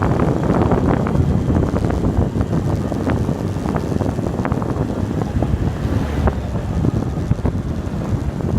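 Wind buffeting the microphone of a bike speeding downhill, over a steady road rumble with frequent small clicks and rattles.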